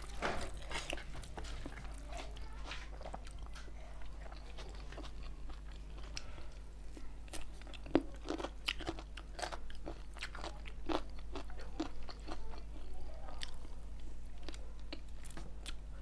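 Close-miked eating sounds of chicken and rice eaten by hand: chewing with scattered crunches and bites, loudest around the middle and second half, over a steady low hum.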